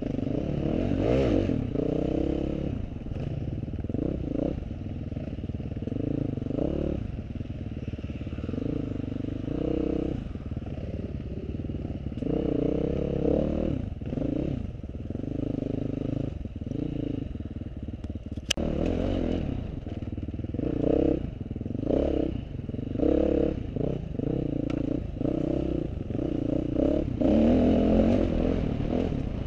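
Off-road motorcycle being ridden, its engine revs rising and falling again and again with the throttle and gear changes. A single sharp click sounds about two-thirds of the way in.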